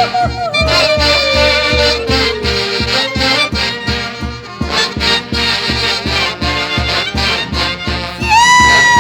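Santiago festival band music from Huancayo, played over a steady drum beat with long held melody notes that slide down in pitch. A new sliding note comes in near the end.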